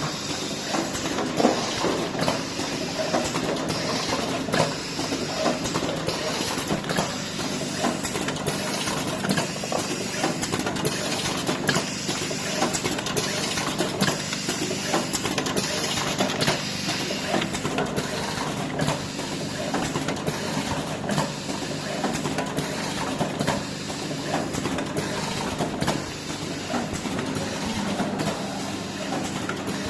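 Horizontal pouch packaging machine running, with a steady hum under a dense run of rapid mechanical clicks and knocks and a hiss.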